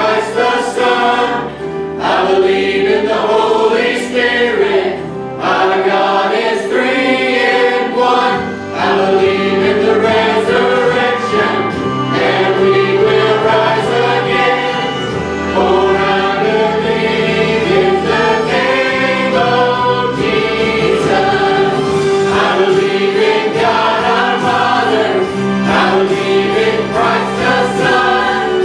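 Church choir singing a gospel hymn, with a steady instrumental bass underneath that moves from chord to chord every few seconds.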